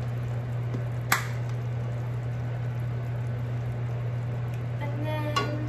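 Pot of pasta water at a rolling boil on a gas stove, bubbling steadily over a constant low hum, while a pan of cream sauce is stirred with a wooden spoon. A single sharp click comes about a second in.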